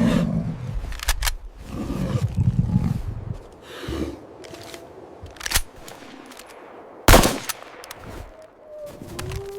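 Rifle shots: several sharp bangs, two in quick succession about a second in, another past the middle, and the loudest a little after seven seconds, over a low rumble that swells and fades.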